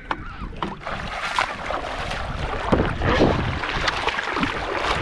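Shallow lake water sloshing and splashing around a stand-up paddle board as a man climbs onto it and kneels, the paddle dipping beside it, with a few sharper splashes along the way. Wind rumbles on the microphone throughout.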